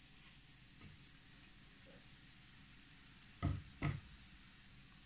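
Oil sizzling faintly as sweet-potato balls deep-fry in a pan. Two dull knocks come about half a second apart a little past halfway.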